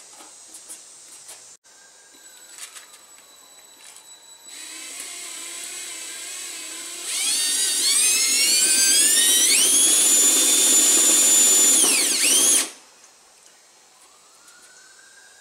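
Cordless drill running into the sheet-metal fender. It starts with a low whirr, then speeds up with a rising whine about seven seconds in, holds at full speed for about five seconds, and winds down and stops.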